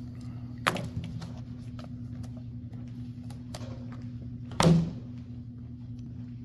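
Steady low hum, with a sharp click just under a second in and a heavier thud about two-thirds of the way through.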